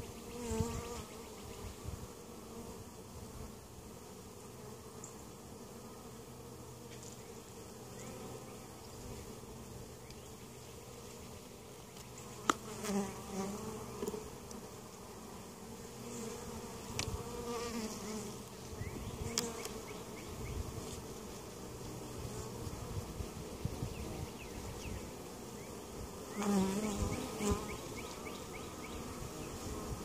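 Honey bees buzzing in a steady hum around an opened hive, with louder buzzes swelling up a few times. One sharp click about twelve seconds in.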